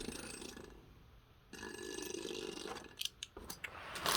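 Rustling handling noise, then several sharp plastic clicks and taps as Beyblade parts are picked up and handled.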